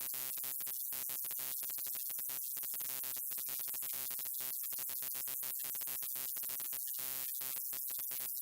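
Electrical buzz of a neon light: a steady hum of many evenly spaced tones with hiss above it. It cuts out for an instant many times at irregular intervals, giving a sputtering, flickering crackle.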